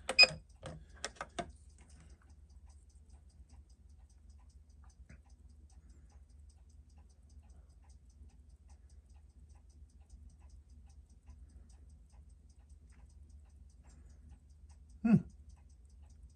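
A few sharp clicks at the start, then the faint, rapid, even ticking of a Seiko 6105 automatic movement's escapement running with its newly fitted balance. About fifteen seconds in there is one short, loud thud.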